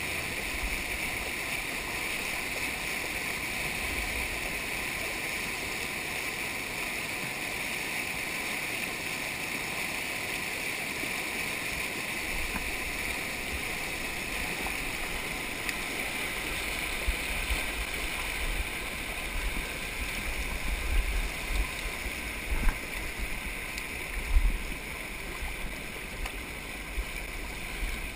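Creek water rushing steadily, an even hiss. In the second half, low irregular rumbles and a few sharp bumps come through.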